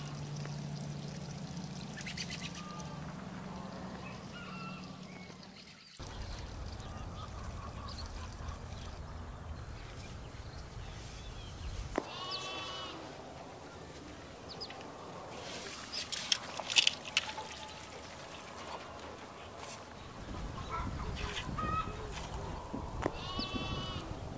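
Outdoor ambience with a steady low hum for the first few seconds. An animal calls twice, about halfway through and near the end, with a few sharp clicks and knocks in between.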